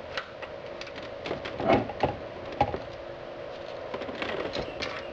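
Plastic wiring-harness connectors being pushed and clicked into the back of a car's CD player/stereo head unit, with scattered clicks, knocks and rattles from handling the metal-cased unit; the loudest knocks come a little under two seconds in and again a second later. A faint steady hum runs underneath.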